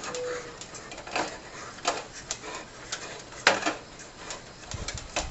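Irregular light clicks and knocks of hands handling an LED corn-cob bulb and the sheet-metal reflector inside a street-light fixture housing, the sharpest knock about three and a half seconds in, with a few dull thuds near the end.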